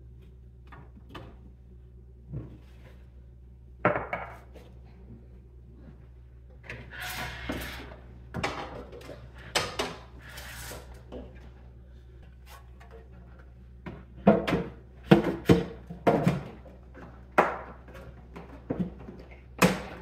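Bottles and jars knocking and clinking as they are set onto refrigerator shelves and door bins, with some rustling of packaging, over a low steady hum. The knocks are scattered at first and come thicker and louder in the second half.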